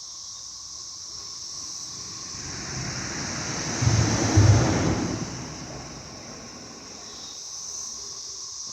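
Cicadas droning in a steady, high, even buzz. A rush of noise swells up from about two seconds in, is loudest around four seconds, and fades away by about six seconds.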